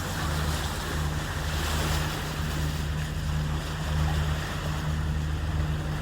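Lagoon 46 catamaran under way: a steady low engine drone that swells and eases slightly, with water rushing along the hulls and some wind noise on the microphone.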